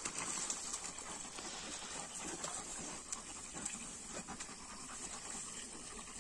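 Two Georgian shepherd dogs (nagazi) digging and scuffling at play in dirt and grass: faint, irregular rustling and scraping.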